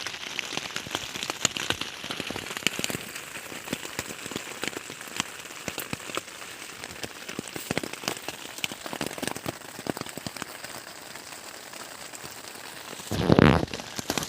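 Drizzle falling: a steady hiss of rain with many separate drops ticking. A brief louder noise about thirteen seconds in.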